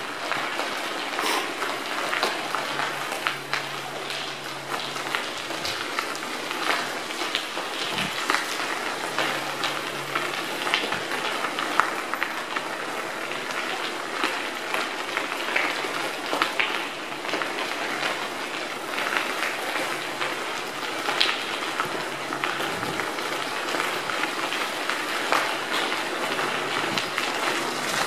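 Bicycle tyres rolling over a gravel trail, a steady crunching hiss full of small ticks and crackles from the stones and the rattling bike.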